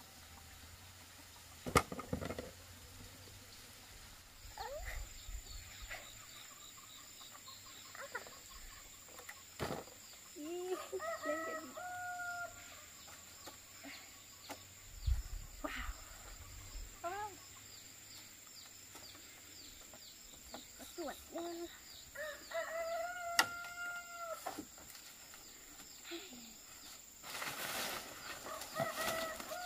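Roosters crowing: two long crows, one about a third of the way in and one about three-quarters through, with another starting right at the end. A single sharp knock sounds near the start.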